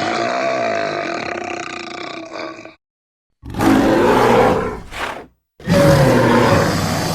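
Fantasy-creature roar sound effects for a manticore. A roar trails off nearly three seconds in. After a short silence comes a second, growling roar with a brief tail, and a third roar starts near the end.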